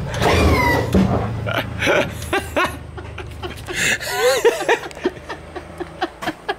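A woman giggling and laughing in short bursts, with some squeals, over a low hum that stops near the end.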